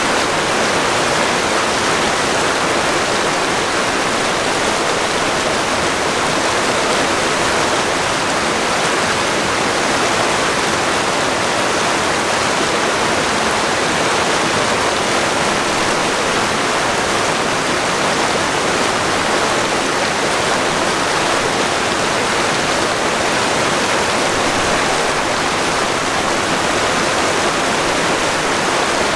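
Creek water rushing steadily over rocks at a lake outlet.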